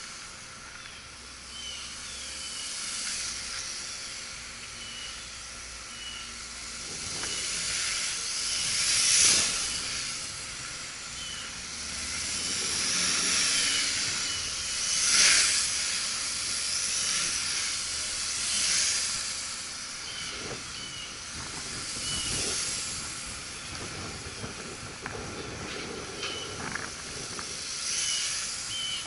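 Small quadcopter drone's motors and propellers whirring at a high pitch, swelling and fading as the drone flies nearer and farther; loudest about nine and fifteen seconds in.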